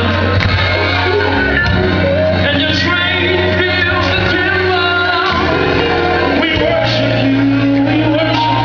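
Live gospel music: singers over sustained low chords that change a few times, with shouts, in a large reverberant hall.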